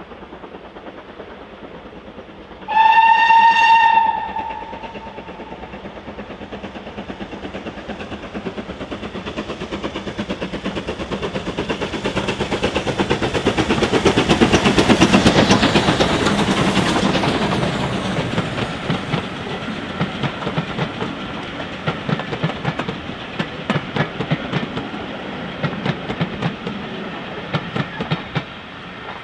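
Two GWR 4-6-0 steam locomotives double-heading, led by Hall class 6990 Witherslack Hall: a single whistle blast about three seconds in, then the locomotives chuffing past, their exhaust beats loudest around the middle. Towards the end the coaches follow, their wheels clicking over the rail joints.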